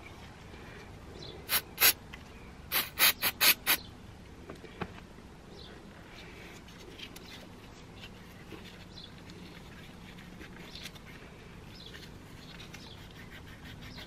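Seven short hissing bursts from an aerosol spray can, most likely brake cleaner: two about a second and a half in, then a quick run of five about three seconds in. Faint bird chirps and small handling noises otherwise.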